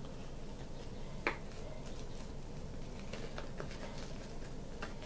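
Thin disposable plastic glove being worked onto a hand: a few soft crinkles and small clicks, with one sharper click about a second in.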